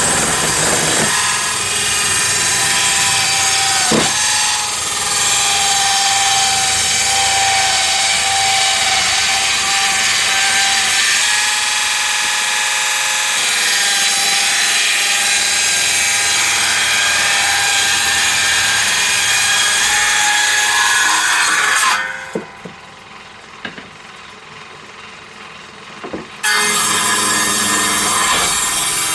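Power saw ripping timber lengthwise, a steady cutting noise with a constant whine. About three-quarters of the way through it falls much quieter for about four seconds, then the cut starts again.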